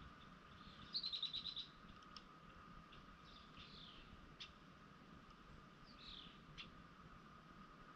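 Songbirds calling out of sight: a quick trill of about eight high notes about a second in, then a few short falling calls, over a faint steady tone.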